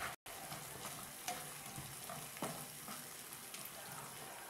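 Onions, green chillies and sauces sizzling in a frying pan as a spatula stirs them, with a few sharp scrapes of the spatula against the pan.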